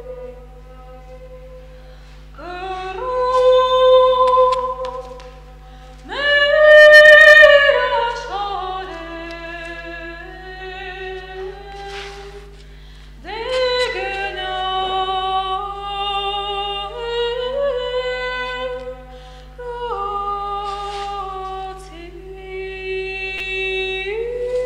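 A solo female voice singing a slow melody without accompaniment, with long held notes that swell loud and soft, over a steady low electrical hum.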